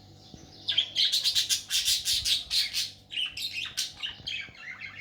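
Budgerigar chirping and chattering: a run of loud, rapid chirps starts about a second in, then thins out to softer, scattered chirps.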